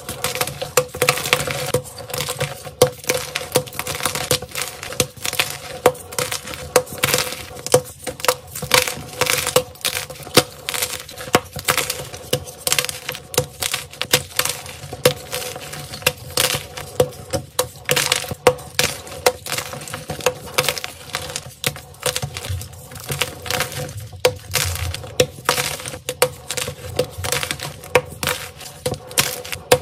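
Blocks of crunchy gym chalk snapped and crushed by hand: a quick, irregular stream of dry cracks and crunches, several a second, as the blocks break and crumble into pieces.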